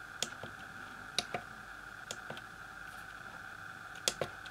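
Keys on an Elektronika MK-161 programmable calculator's keypad being pressed: a few light, separate clicks, two close together about a second in and two more near the end. A faint steady high whine runs underneath.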